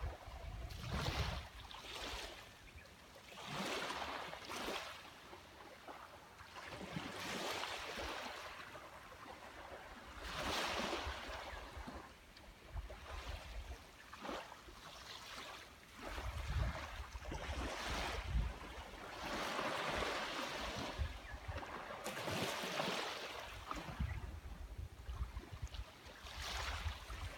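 Small sea waves breaking and washing up a beach, the surf swelling and fading every two to three seconds, with occasional low rumble of wind on the microphone.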